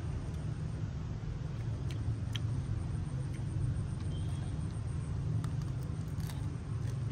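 Steady low background rumble, with a few faint clicks and ticks over it.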